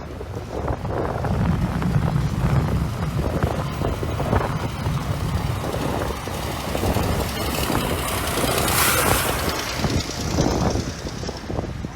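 Blizzard wind buffeting the microphone in a steady low rumble, with a louder hissing gust about nine seconds in.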